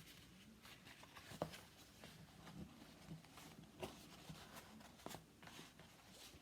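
Faint rustling and a few soft taps of paper being folded along score lines and creased.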